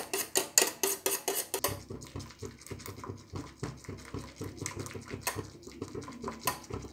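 Small hand wire whisk beating hot milk in a stainless steel saucepan to froth it. The wires clink rapidly against the pan, several strokes a second. After about two seconds the strokes turn quieter and softer, with an occasional sharper clink.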